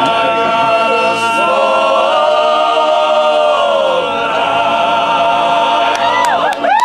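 Male a cappella choir singing long-held chords in close harmony, with one chord sliding down in pitch midway. These are the closing chords of the song.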